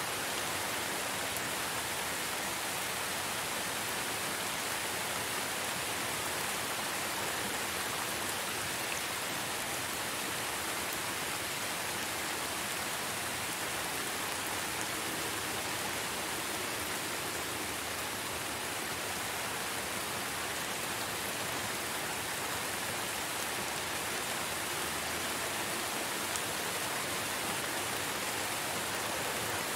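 Steady rainfall, an even hiss of many drops.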